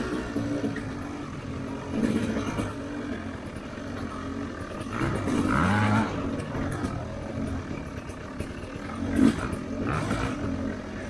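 Dirt bike engine running on a trail ride, its revs rising and falling with the throttle, with revving climbs about five seconds in and again about nine seconds in.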